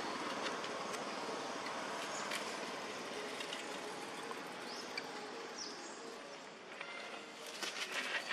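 Steady outdoor background noise that fades slightly, with a few faint high chirps and a scatter of soft clicks and rustling near the end.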